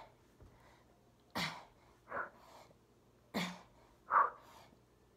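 A woman breathing hard through push-ups: two sharp, forceful exhales about two seconds apart, each followed by a shorter, softer breath with a bit of voice in it.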